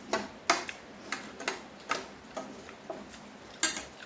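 Close-up eating sounds of noodles being eaten: a run of sharp clicks, roughly two a second, from chewing and from spoon and fork on a ceramic plate.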